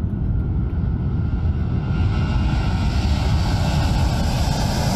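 A C-17 Globemaster III's four turbofan jet engines at takeoff power as the aircraft rolls and lifts off: a loud, steady rumble with a higher hiss that grows louder about two seconds in.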